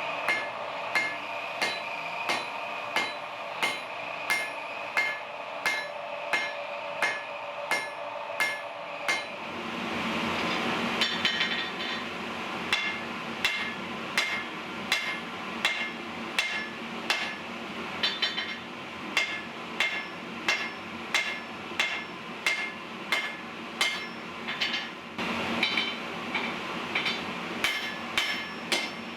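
Hand hammer blows on hot steel over an anvil, struck at a steady rhythm of about one and a half blows a second, each with a short metallic ring. A steady rushing noise runs underneath.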